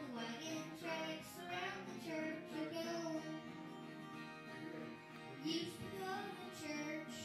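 A young boy singing a song to acoustic guitar accompaniment. He breaks off for a moment around the middle while the guitar carries on, then sings again.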